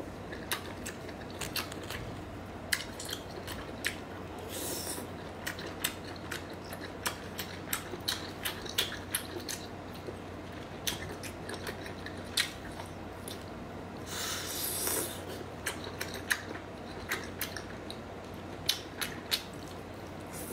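Close-up chewing and biting of skewered baby octopus, with frequent sharp wet clicks and smacks of the mouth. Two longer noisy stretches come about five seconds in and around fourteen seconds.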